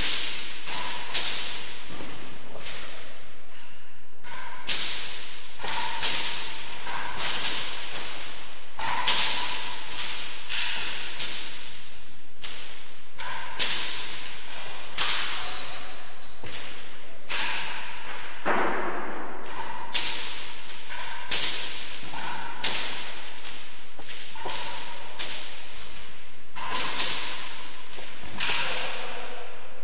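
A racquet-sport rally in an enclosed court: a hard ball struck by racquets and hitting the walls and floor, sharp cracks about one to two a second, each with a short ringing echo.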